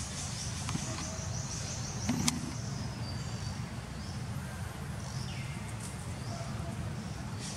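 Outdoor ambience: a steady low rumble, with faint high chirping and a single sharp click about two seconds in.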